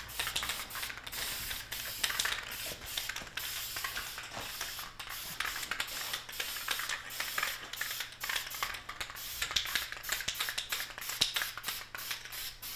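Aerosol spray can of primer being sprayed in many short, quick bursts, a broken hiss, dusting on a light textured coat.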